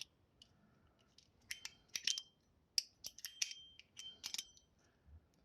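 Titanium mechanical fidget slider worked by hand: a string of about a dozen quiet, sharp metallic clicks in pairs and small clusters, some leaving a brief high ring, the Zippo-like snap of its spring-and-ball mechanism.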